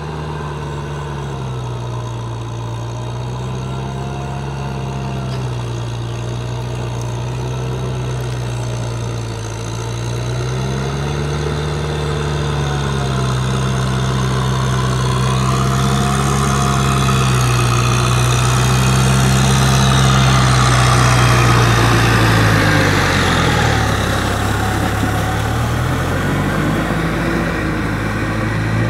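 Kubota M6040 SU tractor's diesel engine running under load, its pitch dipping and rising several times, growing louder as it draws near. In the second half a hissing, churning noise builds over it from the rotary tiller working through flooded paddy mud.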